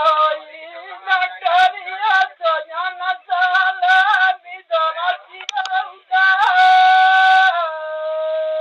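A singer's voice singing a Bagheli birha folk song in short phrases that bend up and down in pitch, then holding one long high note near the end, which settles into a softer sustained tone.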